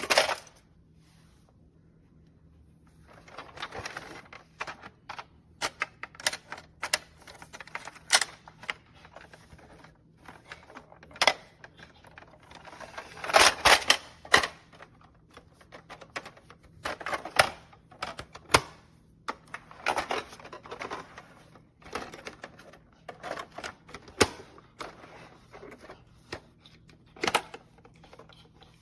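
Hard plastic toy parts being handled: irregular clicks, snaps and short rattling clusters, loudest in a burst about halfway through.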